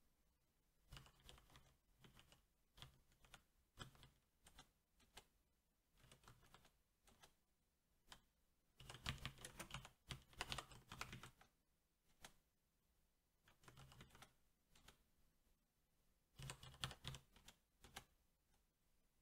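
Faint typing on a SteelSeries 6Gv2 mechanical keyboard with linear Cherry MX Black switches. Scattered single keystrokes, with two fast runs of typing: one about halfway through and one near the end.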